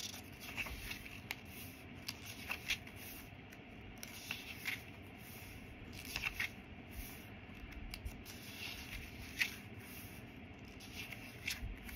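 Pages of a handmade paper junk journal being turned and handled: soft, irregular paper rustles and light taps, a few short ones scattered through.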